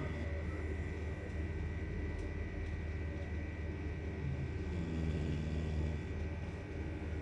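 A beagle snoring, with one drawn-out pitched snore about four and a half seconds in, over a steady low hum.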